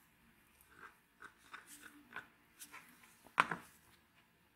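Small scrapes and soft taps of a flat stick spreading freshly poured, thick resin over a panel, with one louder knock about three and a half seconds in.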